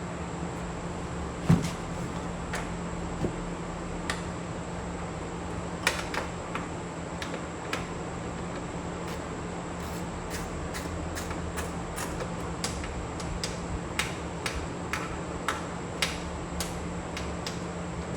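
Irregular light clicks and taps of hand work on a car bumper, with one sharper knock about one and a half seconds in and quicker clicking in the second half, over a steady low hum.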